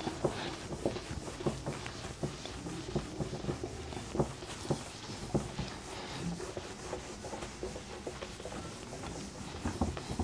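A whiteboard being wiped clean with a cloth: a dry rubbing rustle in quick strokes, with small irregular knocks as the hand moves across the board.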